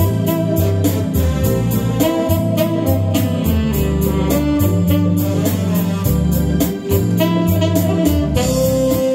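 Tenor saxophone playing a slow melody in long held notes over a backing track of guitar, keyboard and a steady drum beat.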